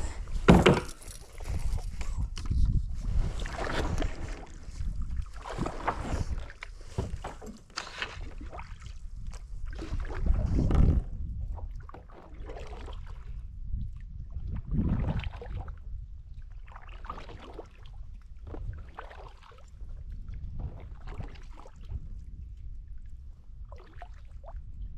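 Kayak paddle strokes through water, one swishing splash about every two seconds, over a steady low rumble. The strokes are stronger at first and fainter in the second half.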